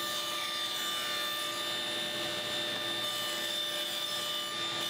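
Table saw running steadily at speed while a thin strip of 1/4-inch plywood is pushed through the blade in a rip cut.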